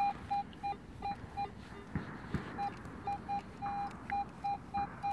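Garrett metal detector giving a run of short, same-pitched beeps, about three a second with a brief pause in the middle and one longer beep, as its coil sweeps back and forth over a freshly dug hole. The jumpy, repeated signal comes from several metal targets lying close together in the ground.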